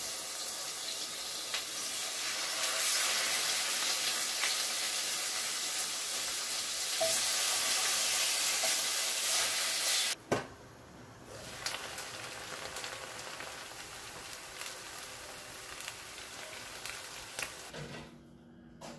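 Food sizzling as it fries in a stainless steel pan, turned with metal tongs, with a few light clicks. The sizzling drops suddenly to a much fainter hiss about ten seconds in.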